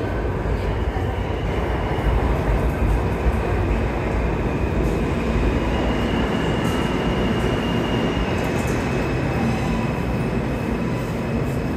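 New York City subway train running out of sight in the station: a steady low rumble, with a faint, high-pitched wheel squeal midway through.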